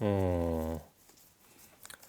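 A man's voice making one long, low wordless sound, like a held 'mmm', for just under a second, then quiet with a few faint handling ticks near the end.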